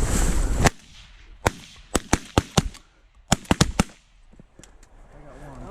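Geese honking, cut off by a volley of shotgun fire from several hunters: about ten shots in quick, uneven succession over some three seconds.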